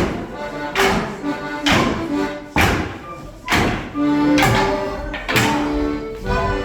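A live Fieldtown morris dance tune with held, steady notes, cut by sharp knocks from the dancers about once a second.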